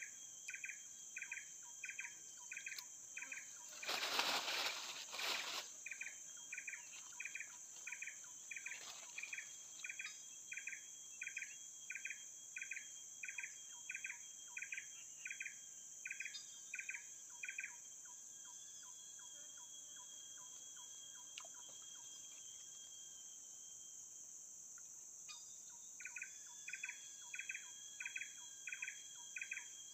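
Insects keeping up a steady high-pitched drone, over a repeated short chirp at about one and a half a second that falls silent for several seconds past the middle and then resumes. A brief burst of noise about four seconds in.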